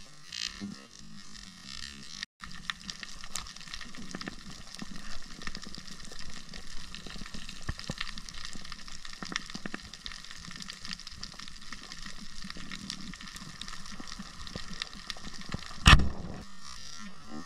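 Underwater coral-reef ambience heard through a camera housing: a dense, steady crackling with a single loud knock near the end.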